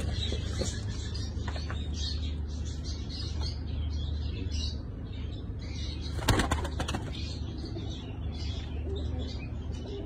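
Pigeons in a loft: a short flurry of flapping wings a little over six seconds in, with cooing and higher bird calls throughout, over a steady low hum.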